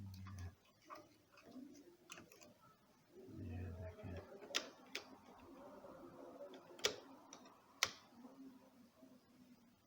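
Handling noises on an opened Janome zigzag sewing machine: a low thump at the start and another about three and a half seconds in, then four sharp clicks over the next few seconds with faint scraping between.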